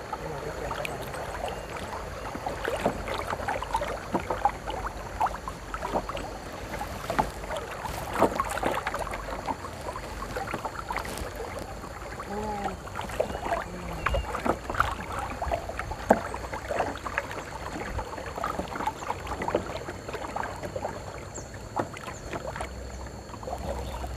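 Kayak paddles dipping into river water, with irregular splashes and drips over a steady wash of moving water.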